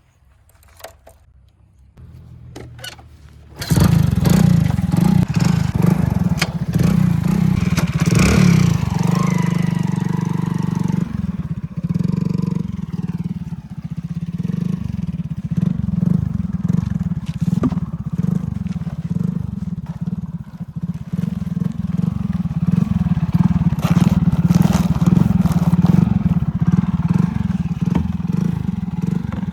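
A heavy vehicle's engine starts up a few seconds in, then runs steadily with a low, even throb.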